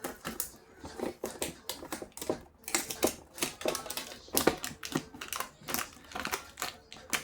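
Packaging of a Panini sticker box being pulled open by hand: a rapid, irregular run of crinkles, clicks and rustles.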